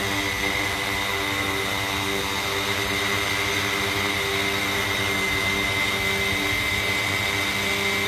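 Large quadcopter's electric motors and propellers running at hover: a steady high whine over a buzzing rush of air.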